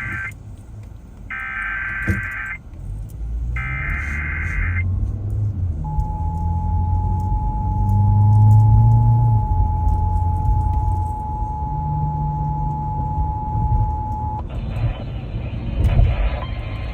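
Emergency Alert System broadcast: the rasping digital SAME header bursts, the tail of one and two more about a second apart, then the two-tone EAS attention signal held steady for about eight and a half seconds before it cuts off. A low rumble sits underneath, and a hissy, muffled sound takes over near the end.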